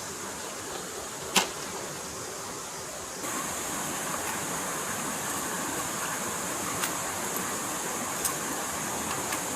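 Steady rush of a flowing stream. A sharp click comes a little over a second in, and a few fainter ticks follow later. About three seconds in, the hiss steps up a little louder and brighter.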